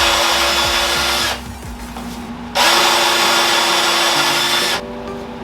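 Power drill running in two bursts of about two seconds each, with a steady motor whine, stopping briefly between them.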